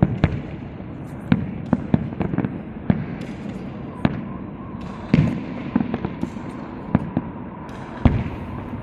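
Fireworks castillo going off: a string of sharp bangs and cracks at irregular intervals, several a second at times, with a faint steady whistle coming in about halfway.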